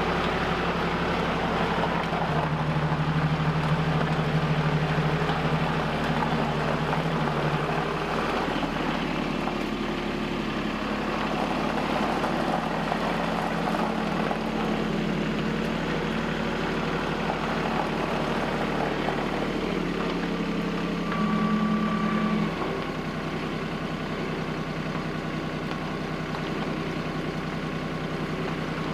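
Compact tractor with a front-end loader running, its engine speed shifting as it moves about. Near the end the revs rise briefly, then drop to a lower, steady run.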